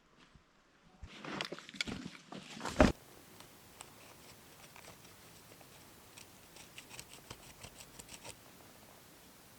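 Rustling and handling noises ending in one sharp knock, then a faint steady hiss with scattered small clicks.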